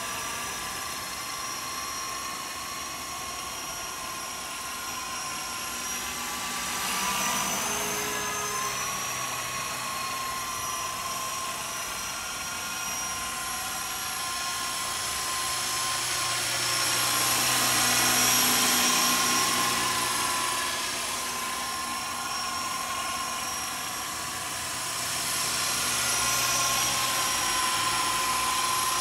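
Electric radio-controlled model helicopter (Walkera Lama 400 with an EC135 scale body) in flight: a steady high electric-motor whine over the rotor whir. The pitch shifts briefly about seven seconds in as the throttle changes, and the sound swells louder three times, about seven seconds in, in the middle and near the end.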